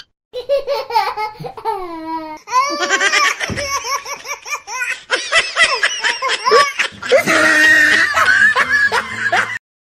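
Loud laughter in quick repeated bursts, cutting off suddenly near the end.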